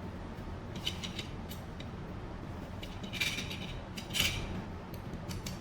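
Small clicks, scrapes and brief rattles of hands fitting an end seal into a curtain track, with the busiest handling about three and four seconds in.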